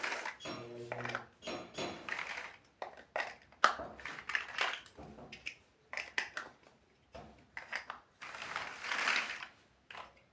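Plastic building bricks clicking and rattling as pieces are handled and pressed together: a string of sharp, irregular clicks, with a longer stretch of rustling about eight seconds in.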